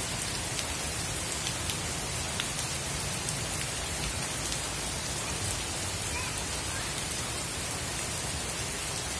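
Heavy rain falling steadily onto shallow floodwater covering a path: an even hiss of drops hitting the water surface.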